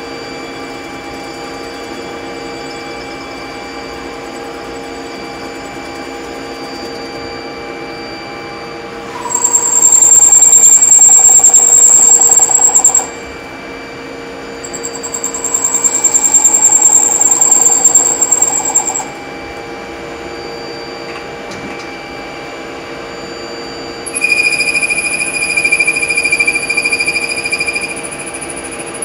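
CNC lathe turning a metal bar under coolant: a steady machine hum with a few thin steady tones, broken three times by a loud high-pitched squeal lasting about four seconds, starting about nine, fifteen and twenty-four seconds in. The last squeal is higher in pitch than the first two.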